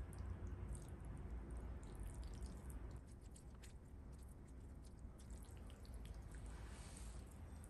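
Metal chopsticks tossing and lifting noodles coated in a sticky spicy sauce on a plate: faint wet squishes and light clicks scattered throughout, over a steady low hum.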